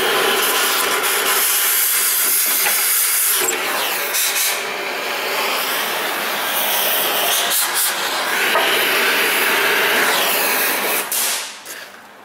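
Oxy-fuel cutting torch hissing steadily as its flame works on rusted exhaust flange nuts and studs. It stops shortly before the end.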